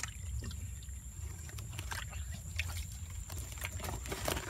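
Hands groping and sloshing through muddy water at the bottom of a dug hole, with scattered small splashes, over a steady low rumble and a thin steady high tone.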